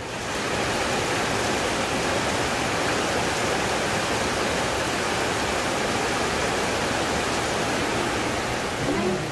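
Heavy tropical downpour: rain pouring onto corrugated metal roofs and tree leaves, a dense, steady hiss.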